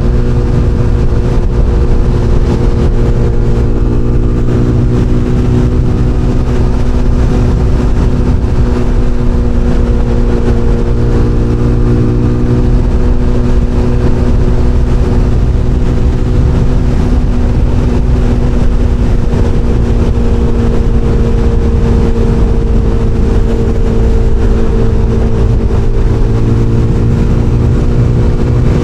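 SBM 250 S motorcycle engine running at a steady, unchanging pitch under way, with dense rumble and rushing noise beneath it.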